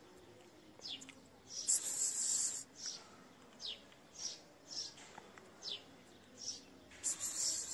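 Kitten hissing in two bursts, about two seconds in and again near the end, with short, high, falling chirps repeating about every half second between them.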